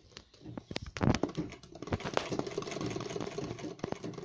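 A few separate knocks about a second in, then a sewing machine doing embroidery stitching in a fast, even run of needle clicks.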